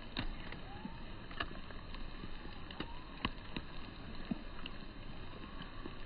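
Rain falling on water: a steady hiss with irregular sharp taps of nearby drops, about two a second.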